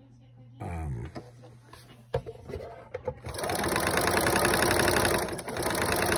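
Viking Husqvarna 1100 sewing machine: a low hum and a click about two seconds in, then from about three seconds in the machine runs fast, its needle going with a rapid, even banging. The banging happens only on some stitch settings, and the owner is not sure it is normal.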